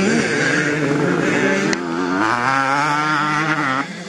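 Two-stroke motocross bike engines running at high revs, their pitch rising and falling as the riders throttle through the track. The sound changes abruptly about two seconds in and drops in level just before the end.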